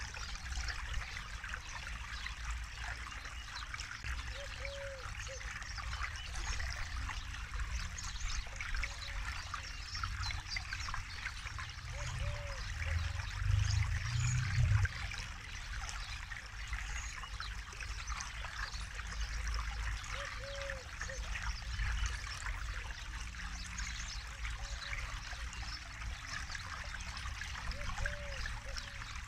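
Forest river flowing steadily over rocks, a continuous babble and trickle of water with a low rumble underneath that swells for a few seconds about halfway through.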